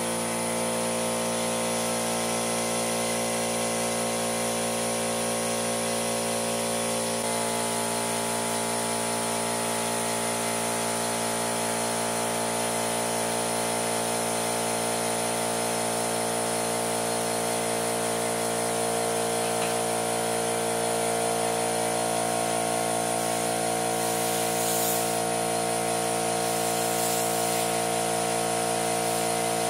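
Air compressor motor running steadily while a garden tractor tire is topped up with air after its liquid ballast fill. Near the end come two brief hisses of air as the chuck goes on the valve.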